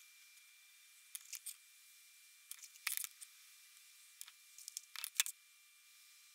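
Faint, scattered clicks and light scrapes of handwork: a wooden stick spreading grey epoxy onto a flywheel and gloved hands turning the flywheel, in small clusters, loudest about five seconds in.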